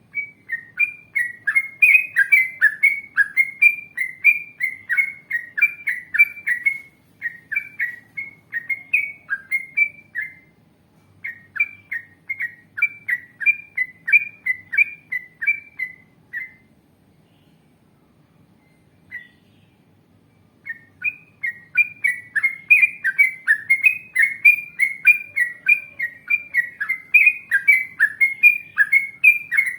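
Yellow-vented bulbul (trucukan) singing a long chattering string of short, quick notes, about three a second. The song breaks off for a few seconds past the middle, with one lone note in the gap, then resumes.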